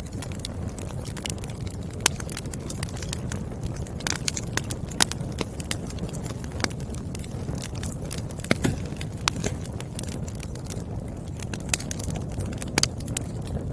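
Wood fire burning: a steady low rush of flames with frequent irregular crackles and pops from the burning firewood, a few pops louder than the rest.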